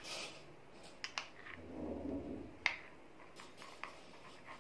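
A few light, sharp clicks and taps of a small glass bowl being handled and stirred, the sharpest about two and a half seconds in, with a soft low rustle of movement just before it.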